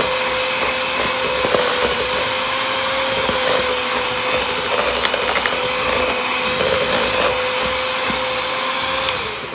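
Electric hand mixer running steadily, its beaters whipping cream cheese frosting, with a constant motor whine. Near the end the motor is switched off, and the whine drops in pitch and dies away.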